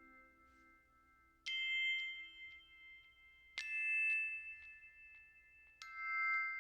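Three struck bell-like chime tones about two seconds apart, each sharp at the start and ringing on long enough to overlap the next.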